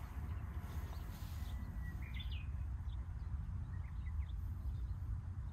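Wind rumbling on the microphone, with a few short bird chirps in the background.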